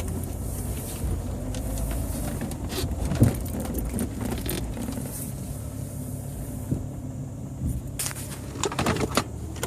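A Jeep Grand Cherokee WJ's 4.0L inline-six running while driving at low speed, heard with steady road noise and a whistle that the owner suspects is a bad water pump. A few sharp rattling clicks come near the end.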